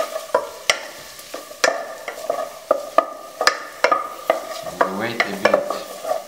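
Wooden spatula stirring onions, garlic and ginger frying in oil in a non-stick pot. The spatula knocks against the pot about three times a second over a light sizzle.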